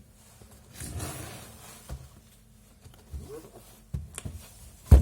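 Product box being handled: a rustle about a second in, a few light knocks, and a louder thump near the end.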